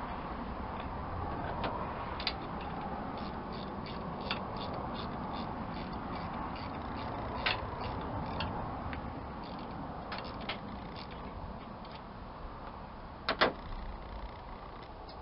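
Small irregular clicks and clinks of a hand tool and metal fittings being worked at the winch's power-cable terminals, over a steady low background noise, with a sharper double click near the end.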